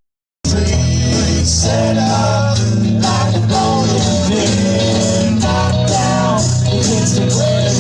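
A song with a sung vocal over guitar and bass, after a half-second gap of silence at the start.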